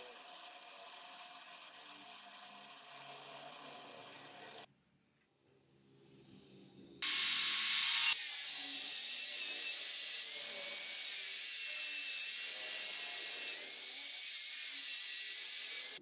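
A drill press bit boring through mild steel flat bar, a steady whirr, for the first few seconds. After a short pause, a grinding disc grinding the end of the steel bar: a much louder, steady high-pitched hissing grind that runs on with small dips in level.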